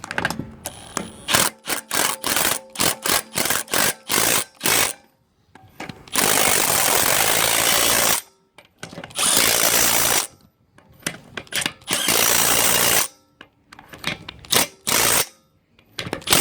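Milwaukee M12 CIW12 Fuel 1/2-inch cordless impact wrench running wheel nuts on: a string of short trigger blips, then three longer runs of about two, one and one seconds, then more short blips near the end.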